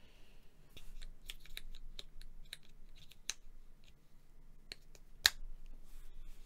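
Irregular light clicks and taps of hands working with small hardware at a desk, the sharpest about five seconds in, over a faint steady low hum.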